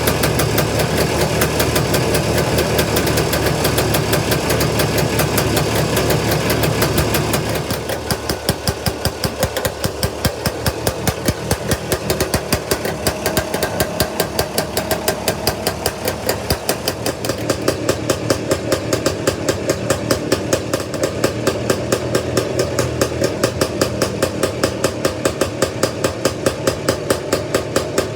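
Scootacar's two-stroke engine running just after starting, at a faster speed at first. About seven seconds in it drops to a slow, even idle with distinct, regular firing beats.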